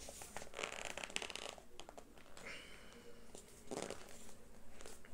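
Faint handling noise from rearranging things on a table: several bursts of rustling and sliding, with a few sharp clicks in between.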